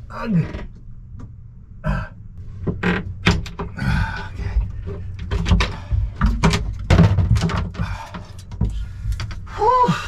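Irregular knocks, thunks and rattles of disassembly work: a wooden locker door being opened and handled, and old windlass relay wiring being pulled loose.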